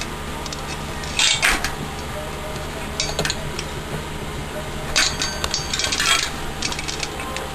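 Bicycle chain clinking and rattling in several short bursts as it is handled and threaded onto the sprockets, over a steady low hum. The loudest rattles come about a second in and again around five to six seconds in.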